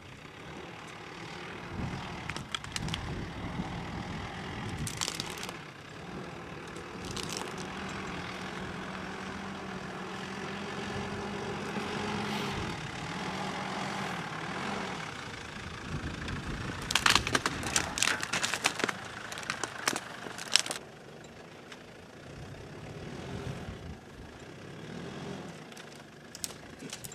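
Mitsubishi Delica four-wheel-drive van's engine running as it crawls slowly over rough rocky ground, with a steady engine note through the middle. Sharp cracks and crunches of stones under the tyres come and go, loudest in a cluster about two-thirds of the way through.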